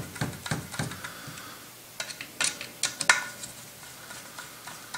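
Hex driver working the heating-element flange bolts on an Olympia Cremina espresso-machine boiler: light metallic ticks and clinks of tool on bolt heads. A quick run of ticks comes in the first second, then a few sharper clinks about two to three seconds in, the loudest just after three seconds.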